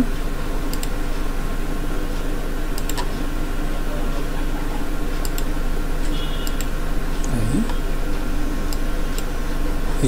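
A few scattered computer mouse clicks over a steady low electrical hum and hiss.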